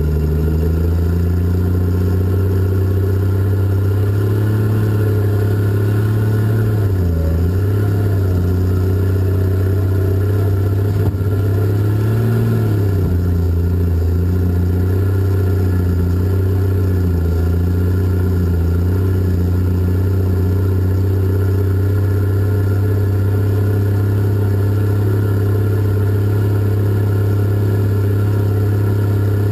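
Cat 627 scraper's diesel engine running loud and steady as the machine drives. Its low drone dips in pitch briefly twice, about a quarter of the way through and again near the middle.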